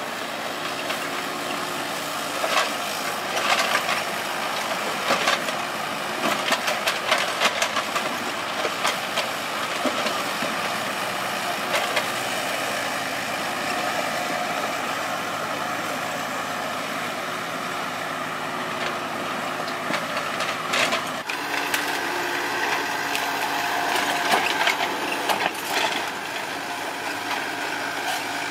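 Kubota KX91-3 mini excavator's diesel engine running steadily under work, with scattered knocks and clanks from the digging in clusters. The sound shifts abruptly about 21 seconds in.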